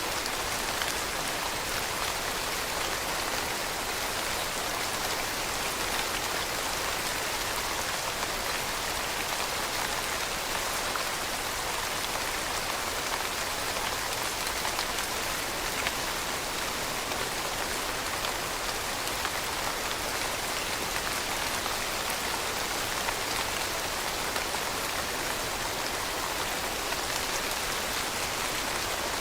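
Steady rain falling on a surface, a continuous even hiss of many fine drops with no change in strength.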